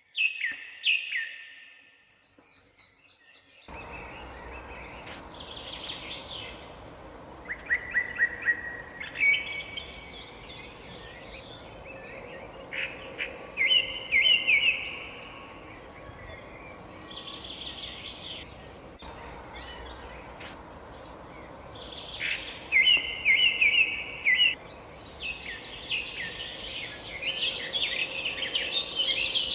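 Birds chirping and singing in short repeated phrases of quick high chirps, several voices overlapping more densely near the end, over a steady background hiss.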